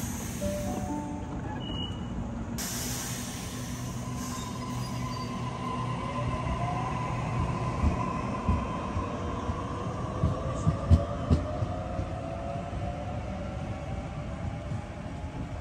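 Train moving along the platform: a steady high squeal from the wheels with a rising whine, and a run of knocks as the wheels cross rail joints, loudest in the second half.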